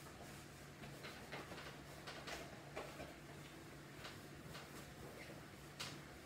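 Faint rubbing and scattered light clicks and knocks of a cloth and rubber-gloved hand wiping the top of a metal refrigerator, over a low steady hum.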